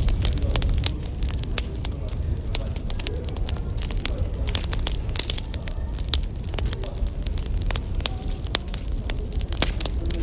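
Wood fire crackling, with irregular pops and snaps over a low, steady rumble.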